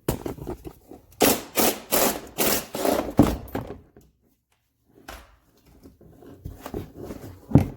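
Plastic interior trim panel being worked loose and pulled off, its clips knocking and rattling: a quick run of knocks about a second in, then quieter handling and one sharp knock near the end.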